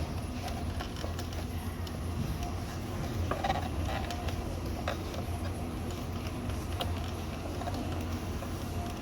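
Scattered light clicks and scrapes of flathead screwdrivers prying at the plastic retaining tabs of a car's centre-console panel, over a steady low hum.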